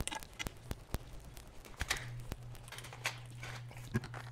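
Footsteps on a hard shop floor: light, irregular clicks and knocks while walking, over a low steady hum.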